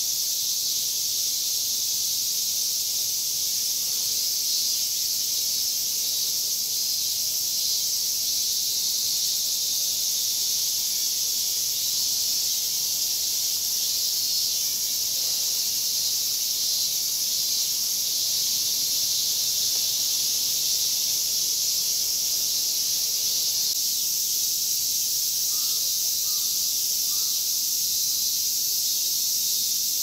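A steady summer chorus of cicadas, a dense high-pitched hiss that keeps on without a break.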